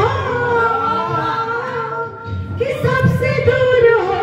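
Music with a woman singing in long held notes that bend in pitch, with a brief dip about two seconds in.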